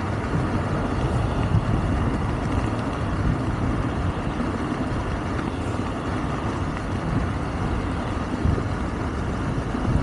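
Steady wind and road noise while riding a Wolf King GT Pro electric scooter: air rushing over the microphone and tyres rolling, with no engine sound.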